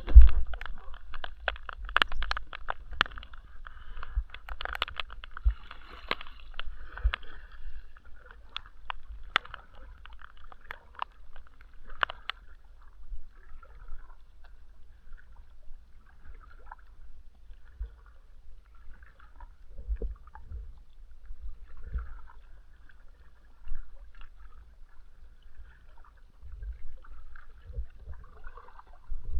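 Water sloshing and gurgling around a fishing kayak, with sharp knocks and clicks against the boat, thick in the first dozen seconds and sparse after.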